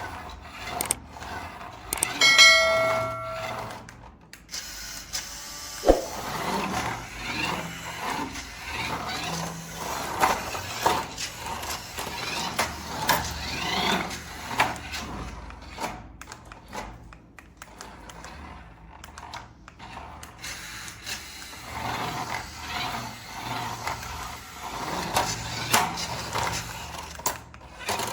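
Plastic toy parts being handled, giving many scattered clicks, rattles and scrapes. About two seconds in comes a short electronic tone lasting about a second, and a sharp knock follows a few seconds later.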